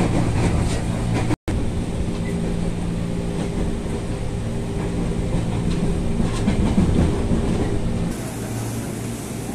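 Jakarta KRL commuter electric train heard from inside the carriage: steady running noise with a low hum, broken by a brief dropout about a second and a half in. Near the end the sound changes as the low hum drops away.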